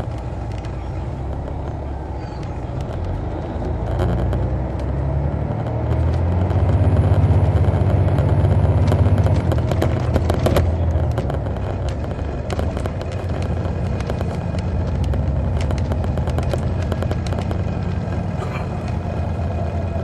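Detroit Diesel Series 60 inline-six diesel of a 2002 MCI D4000 coach running under way, heard from the rear seats. It grows louder about four seconds in, is loudest from about six to ten seconds, then settles back, with rattling clicks from the coach throughout.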